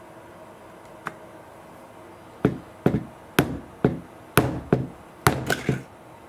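Sharp clacks of a stack of magnets knocking against each other and the hub motor's steel rotor: one faint click about a second in, then about nine quick irregular clacks.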